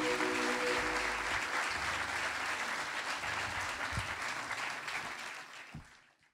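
Audience applauding after a live band's number, the band's last held chord ringing out under the first half-second. The clapping fades away over the last second or so.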